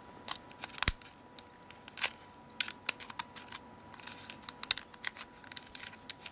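Small, sharp clicks and ticks of a metal SIM card tray being handled and fitted at the side slot of a Nokia X7 phone. The sharpest clicks come about a second and two seconds in, followed by clusters of lighter ticks.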